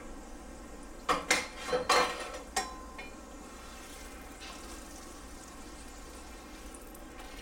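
Corn tortilla frying in a little oil in a nonstick skillet, browning lightly, with a few sharp clinks of metal tongs against the pan between one and three seconds in. After that comes a steady, faint sizzle as the tortilla is lifted and turned.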